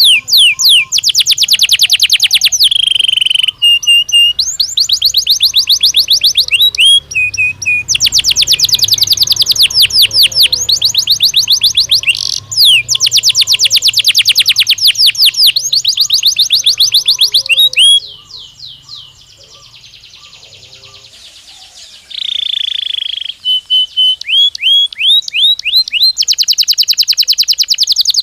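Domestic canary singing fast trills: long rolls of quick, high, downward-sweeping notes, with a few held whistled notes between them. The song drops away for a few seconds past the middle, then starts again with a held note and more trills.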